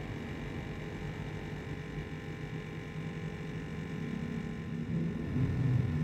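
Steady low electrical hum, growing a little louder near the end.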